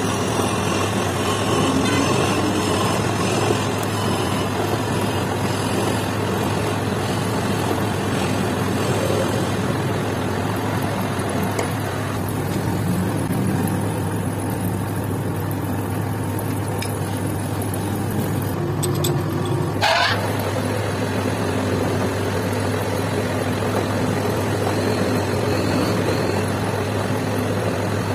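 Metal lathe running, turning a metal shaft, with a steady hum from its motor under the noise of the spinning chuck and the cutting tool. The higher cutting noise thins out for several seconds in the middle, and a short sharp clank comes about twenty seconds in.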